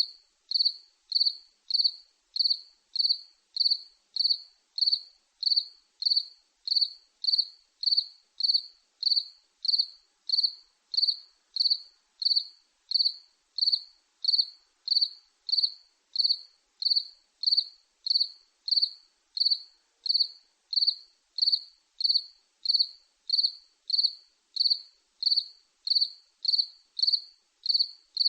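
A cricket chirping in a steady, even rhythm of short high-pitched chirps, about three every two seconds.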